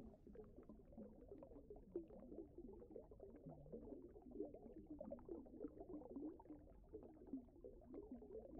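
Faint bubbling, gurgling water: a dense, even stream of small bubble sounds.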